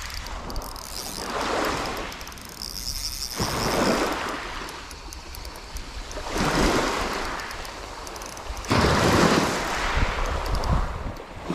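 Small waves washing onto a shingle beach, swelling and falling back every two to three seconds, with wind rumbling on the microphone. About three seconds in there is a brief high chirring from the spinning reel as the fish is played.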